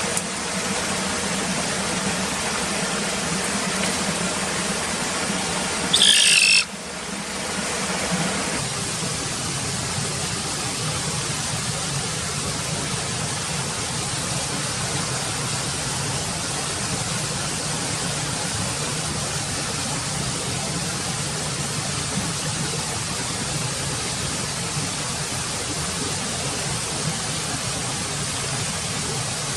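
Steady, even hiss of background noise, with one short, shrill cry about six seconds in.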